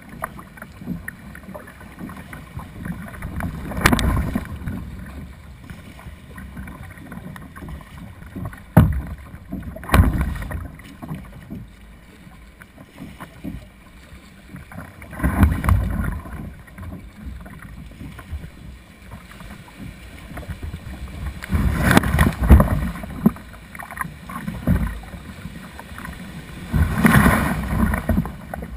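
Ocean surf washing around a kayak's bow as it punches out through breaking waves: a steady wash of water, broken every few seconds by about six loud splashes as whitewater hits the hull.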